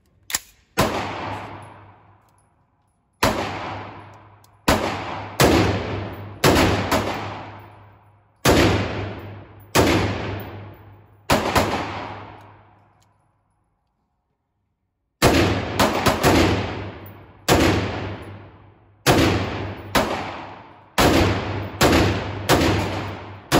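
A 5.56 rifle fired in quick semi-automatic strings, about twenty shots in all, each followed by a long fading echo. There is a pause of about two seconds a little past the middle, then a faster run of shots.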